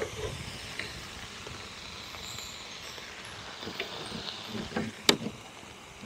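Steak sizzling in a frying pan, a steady hiss, with one sharp click about five seconds in.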